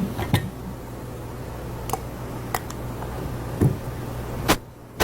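A spoon and glass jar being handled, giving about six light clicks and knocks spread out over a steady low hum.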